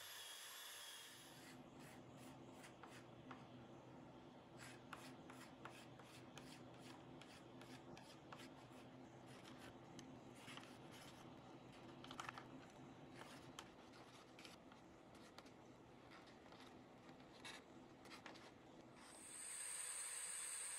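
Many short, quiet rubbing and scraping strokes of a thin wooden slat being worked by hand, over a faint steady low hum. A steady hiss is heard briefly at the start and again near the end.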